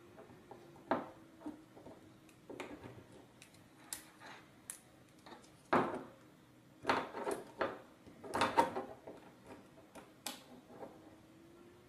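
Light handling of a small plastic battery box and a small screwdriver as an M3 bolt and nut are tightened: scattered soft clicks, taps and rustles, with a faint steady hum underneath.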